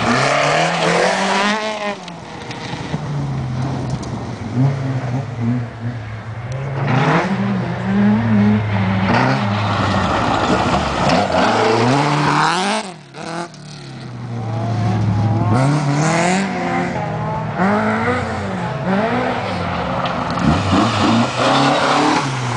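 Rally cars passing one after another at speed. Their engines rev up high and drop back repeatedly as they change gear and accelerate away. The sound cuts out briefly about halfway through.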